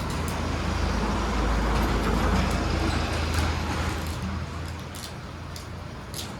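A motor vehicle passing by on the road, its engine rumble and tyre noise swelling to a peak a couple of seconds in, then fading away.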